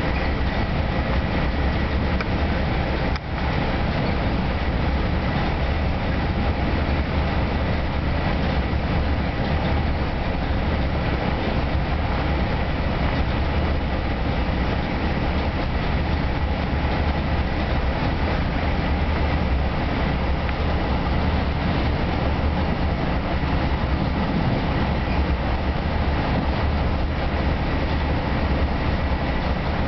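Interior noise of a bi-level commuter rail car running at speed: a steady low rumble of wheels on rail with a faint steady high tone over it. The sound dips for a moment about three seconds in.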